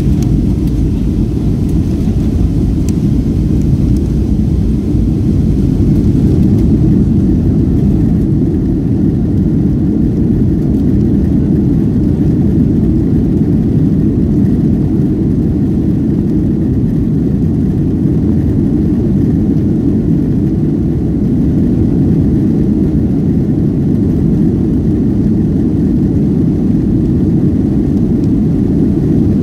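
Cabin noise inside a Boeing 757-200 moving along the ground: a steady low rumble of the jet engines and airframe, holding an even level without rising in pitch.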